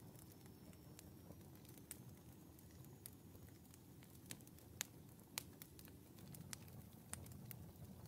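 Glowing embers in a stove's firebox crackling faintly: scattered sharp ticks and pops, the loudest about midway, over a low steady rumble.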